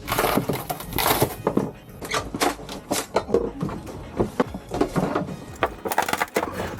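Rigid foam insulation being cut, broken and ripped out of a built-in refrigerator cavity: a fast, irregular run of crunching and cracking.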